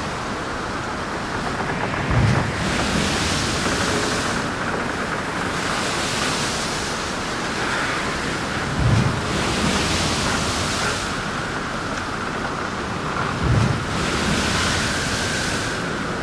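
Steady rushing noise of wind buffeting a microphone, with three brief low thumps a few seconds apart.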